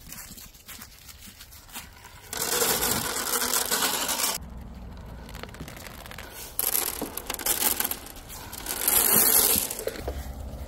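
Dry feed poured from a plastic scoop into a rubber feed pan, rattling for about two seconds, followed by shorter bursts of rustling and crunching in dry leaves.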